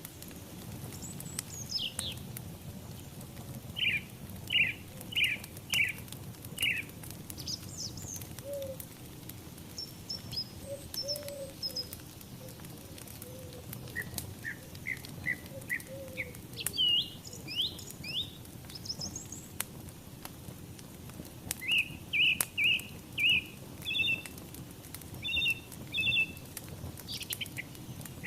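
Birds chirping in runs of four to six quick repeated notes, with a few higher trills between, over the low steady rumble and faint scattered crackles of a burning wood fire.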